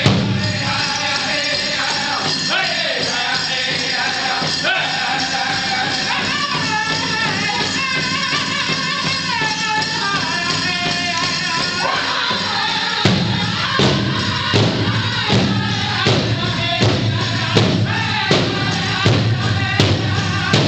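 Powwow drum and singers performing a chicken dance song, with group voices singing over a big drum. A bit more than halfway through, the drumbeat turns hard and steady, a little over one beat a second.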